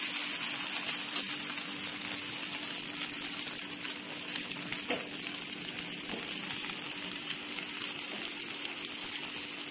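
Phare pieces sizzling in mustard oil in a kadhai just taken off the flame, a steady hiss that slowly dies down.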